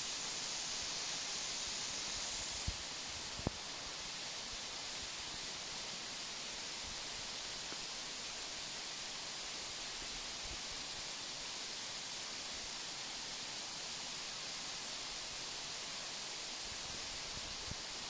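Waterfall rushing in a steady, even roar of falling water. There are two brief clicks about three seconds in.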